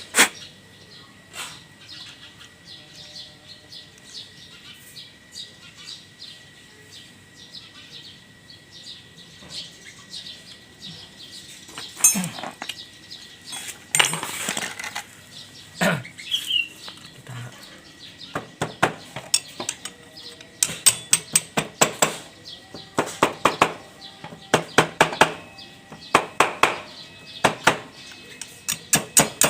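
Metal clinks and taps of hand tools on engine parts, scattered at first, then a fast run of sharp regular clicks, about two a second, through the second half. A faint steady high tone sits underneath.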